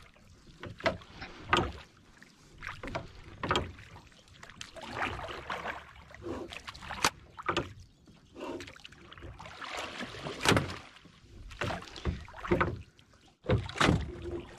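Small wooden fishing boat on open water: irregular sharp knocks against the wooden hull, with bursts of splashing water between them.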